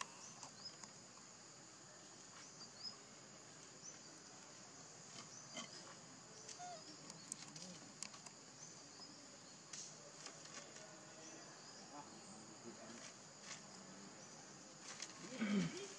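Steady high-pitched drone of insects, with scattered faint clicks and a brief louder sound falling in pitch near the end.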